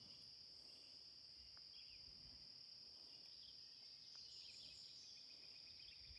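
Faint, steady, high-pitched insect chorus: a constant drone of singing insects.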